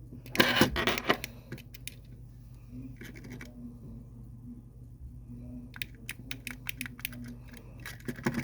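Hands handling a plastic toy and its packaging: a loud scratching rustle about half a second in, a short scrape about three seconds in, then a run of light clicks near the end.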